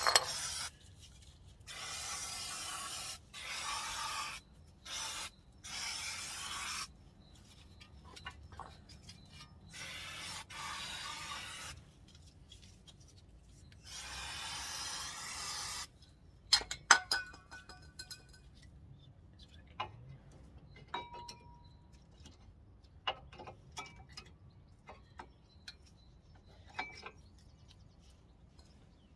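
Aerosol brake cleaner sprayed around a car's front brake in a series of short hissing bursts through the first half, the last and longest about two seconds. Scattered clicks and light knocks follow in the second half.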